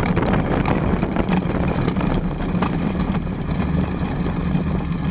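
Flex-wing microlight trike's engine running steadily at low power, a constant drone with a thin high whine above it, as the trike rolls across grass.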